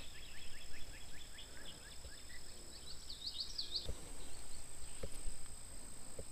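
A bird singing a rapid trill of short falling chirps that stops about four seconds in, over a steady high-pitched insect drone. A few dull knocks come in the second half.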